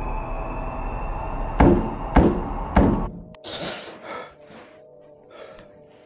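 Horror score: a dense drone with slowly rising tones, broken by three loud knocks about half a second apart, then cut off suddenly. A short breathy gasp follows, with faint eerie music under it.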